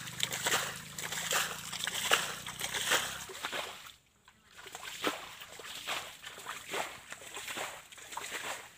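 Repeated splashing as hands scoop muddy water and throw it out of a shallow stream, bailing a stretch dry to catch fish. The sound cuts out about four seconds in, and softer, irregular sloshing of hands working in a small pool follows.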